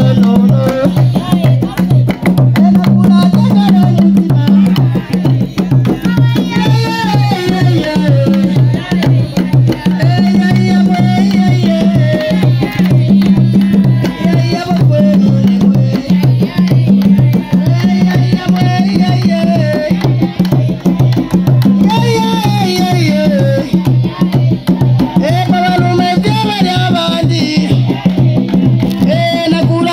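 Tall wooden hand drums played in a fast, steady rhythm, with voices singing in repeating phrases over them.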